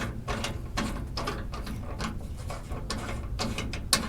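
Hand socket ratchet clicking over and over in short strokes while a long bolt is being unscrewed.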